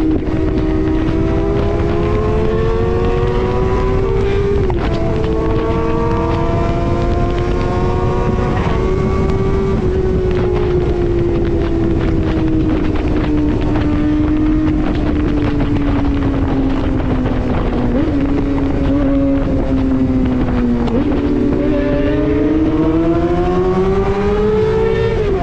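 Suzuki GSX-R inline-four engine under way: the revs climb twice in the first ten seconds, each climb broken by a sudden drop in pitch like an upshift, then fall slowly for about ten seconds as the bike slows, and climb again near the end. Wind rushes over the microphone throughout.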